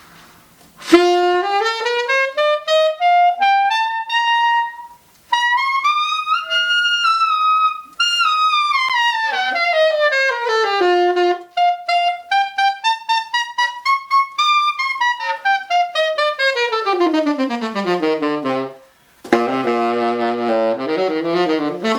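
Saxophone played solo on an old cane reed, tested in the high register: a run climbing from about a second in up into very high notes, sweeping phrases up and down, then a long descending run to low notes and a short low passage near the end. It plays well up high, sounding really good.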